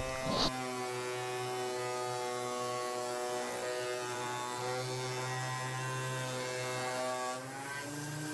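Thickness planer's electric motor running with a steady buzzing hum, its pitch shifting slightly near the end.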